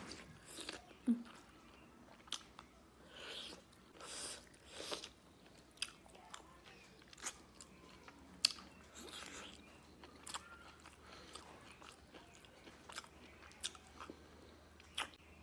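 Close-up chewing and biting of rice and koi fish curry eaten by hand, with soft mouth noises and a dozen or so sharp clicks and smacks scattered through.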